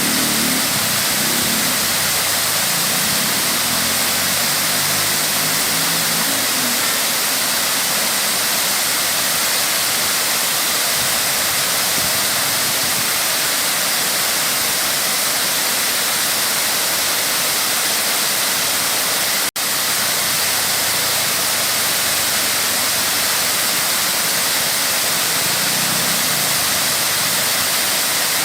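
Waterfall: a steady rush of falling water, cutting out for an instant about two-thirds of the way through.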